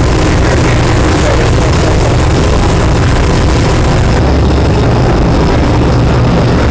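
A large fishing party boat's engines running steadily under way: a loud, even low drone under a rushing hiss, the high part of the hiss easing about four seconds in.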